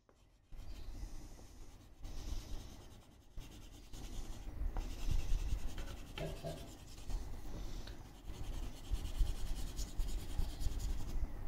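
Crayon rubbing and scratching across a paper sheet in uneven back-and-forth strokes as an area is coloured in, starting about half a second in.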